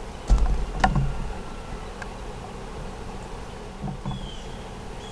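Camera handling: a low rumble with a few knocks and clicks about half a second in as the camera is turned and settled. After that a steady background of buzzing insects, with a couple of short high chirps near the end.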